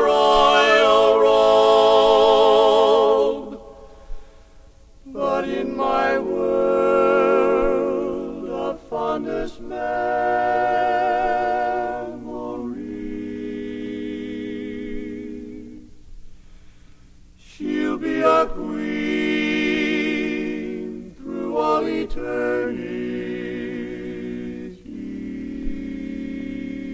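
Barbershop quartet singing a cappella in close harmony: long held chords that waver with vibrato, sung slowly in phrases with brief breaks between them.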